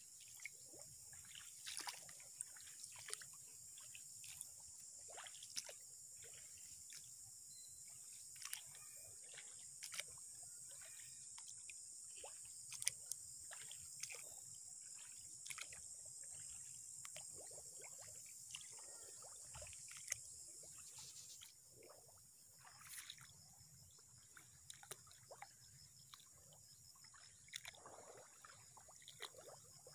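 Faint footsteps wading through shallow water and mud in a flooded grassy field: irregular soft splashes and squelches. A steady high hiss runs underneath and stops about two-thirds of the way through.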